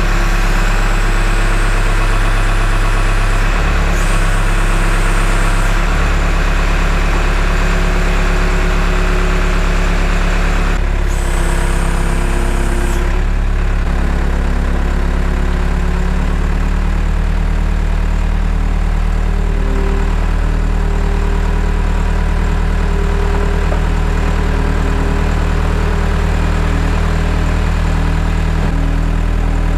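Engine of the vehicle carrying the camera, running loud and steady as it drives, with its note shifting several times in the first dozen seconds or so.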